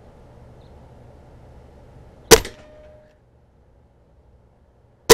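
A single shot from a .22 Umarex Octane Elite break-barrel magnum air rifle about two seconds in: one sharp crack, followed by a short ringing tone that lasts about half a second. A second sharp crack comes at the very end.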